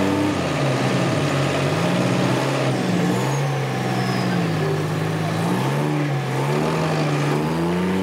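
Wheel loader's diesel engine revving up and down repeatedly, working under load while pushing a dead crawler dozer.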